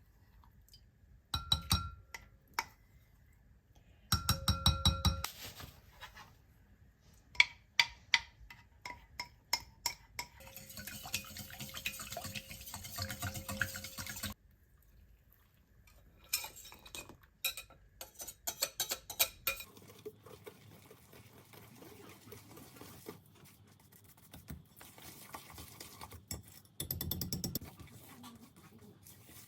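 Kitchen utensils and bowls clinking and knocking while muffin batter is mixed, with scattered sharp clinks throughout. A few seconds of steadier scraping noise begin about ten seconds in.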